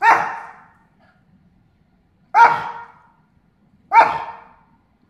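Small long-haired dog barking three times, each bark short and sharp with a quick fade, as an alert at a garage-door notification sound imitated by a person.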